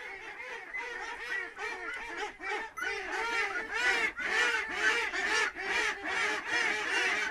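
Ducklings peeping as a group, many short arched calls overlapping rapidly, growing louder after the first few seconds.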